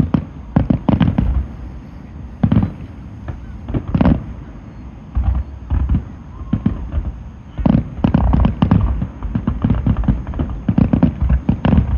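Aerial fireworks bursting: repeated deep booms and sharp bangs, breaking into rapid clusters of crackling reports about two thirds of the way in and again near the end.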